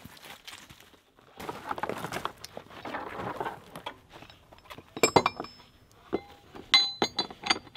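Footsteps crunching through forest debris, then sharp ringing metal clinks in two clusters near the end as a logging choker's metal hardware is handled.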